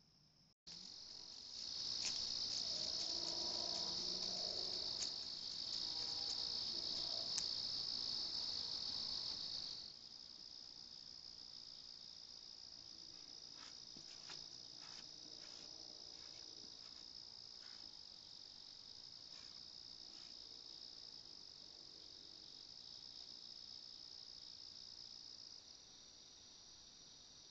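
Night chorus of crickets: a steady, high-pitched trilling. It is louder for the first ten seconds or so, then drops to a softer level.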